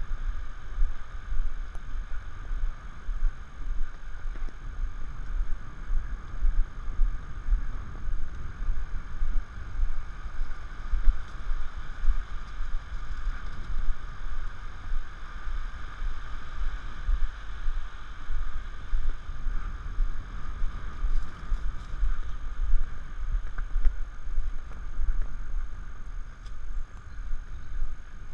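Arabian horse galloping, heard from the saddle: a heavy low rumble of wind buffeting the camera microphone, pulsing unevenly with the horse's stride.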